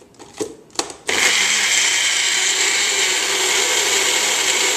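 Magic Bullet personal blender: a couple of clicks as the cup is seated on the base, then about a second in the motor starts and runs steadily, mixing pancake batter.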